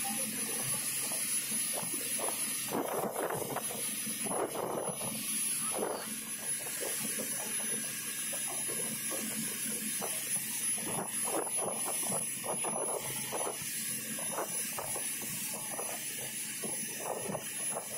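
Rigid inflatable speedboat under way at sea: a steady rush of wind and engine noise, with irregular splashes and slaps of water against the hull.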